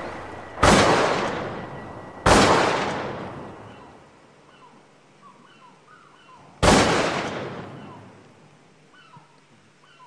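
Three shotgun blasts, each a sharp bang with a long echoing tail: two about a second and a half apart, the third about four seconds later. Faint bird chirps follow the shots.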